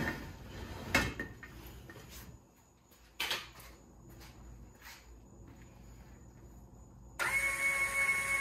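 A few metal knocks as the paramotor frame is set down on the lift platform, then about seven seconds in the lift's electric motor starts with a steady high whine.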